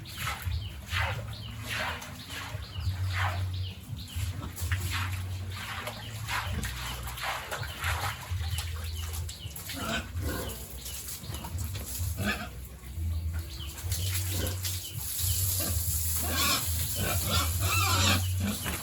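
Pigs grunting and squealing in many short calls, busier near the end.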